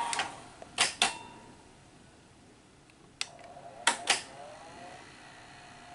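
Sony SL-HF400 Betamax deck's tape transport: a steady whir cuts off at the start, then the mechanism clunks as it stops, two sharp clicks about a second in and three more around three to four seconds in, with a brief motor whir among the later ones.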